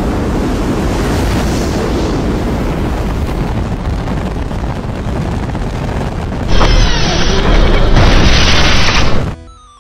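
Dubbed-in jet-engine roar sound effect for a toy fighter jet landing on its exhaust flame: a dense, low, rumbling noise that turns louder and harsher about six and a half seconds in. It cuts off suddenly near the end, where a few electronic music tones begin.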